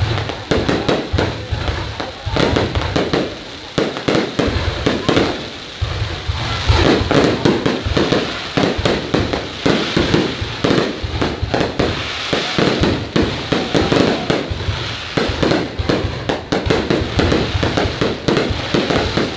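Aerial fireworks shells bursting in a dense, unbroken barrage, several bangs a second.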